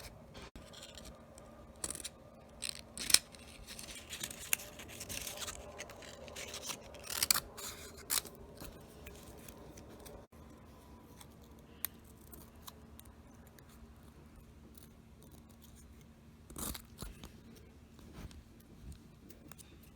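Scissors snipping through construction paper in irregular cuts, with the paper rustling. The snips come thickest in the first half and again briefly near the end.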